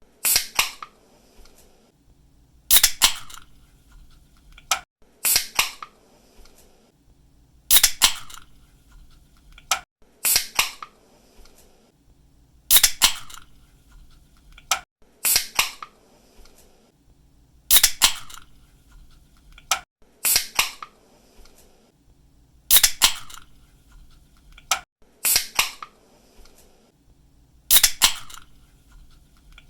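A ring-pull aluminium drink can being cracked open over and over, about every two and a half seconds. Each opening is a sharp snap of the tab followed by a short hiss of escaping gas.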